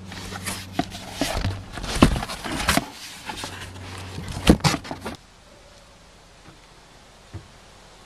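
Irregular knocks, scrapes and rustles of a coffee maker being packed into a cardboard box and the box being handled. About five seconds in they stop suddenly, leaving a low, quiet background.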